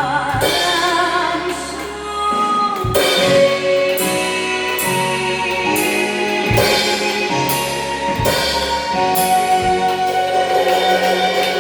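Drum kit played along to a recorded Korean trot song, a woman singing with a strong vibrato over the band. Cymbal crashes and drum hits land about every one to two seconds.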